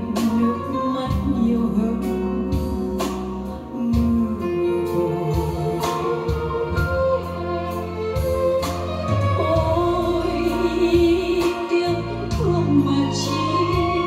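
A sung ballad with guitar accompaniment, played back over a hi-fi system through a Cyrus 8vs integrated amplifier and stereo speakers.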